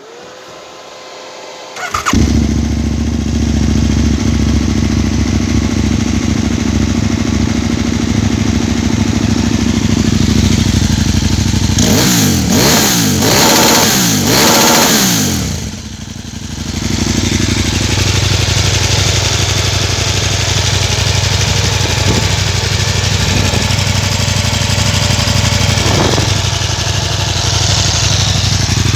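KTM 990 SMR's V-twin, freshly rebuilt and breathing through an Akrapovic exhaust with the dB killer in, cranked on the electric starter for about two seconds before it catches and idles. Near the middle it is revved hard up and down several times in quick succession against the rev limiter, then drops back to idle with a few small throttle blips near the end.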